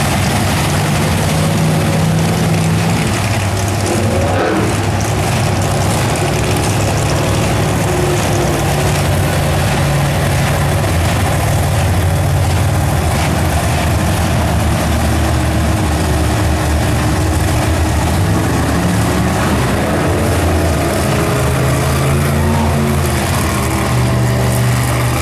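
Several monster truck engines running loud, a low steady drone that shifts in pitch now and then as the trucks roll out and are throttled up and down.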